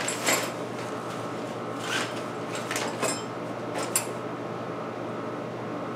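Packing material and a plastic hardware bag being handled: a few short rustles and crinkles in the first four seconds, over a steady background hum.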